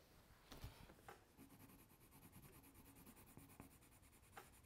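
Faint scratching of colouring strokes on paper, with a couple of light taps in the first second.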